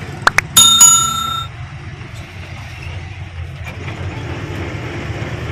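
Goods lorry's engine and road noise running steadily, heard inside the cab. Near the start come two sharp clicks, then a loud bell-like ring that fades out within about a second.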